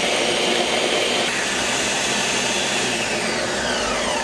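Countertop pitcher blender running, puréeing frozen tomatoes into a thick liquid. Near the end it is switched off and the motor winds down with a falling whine.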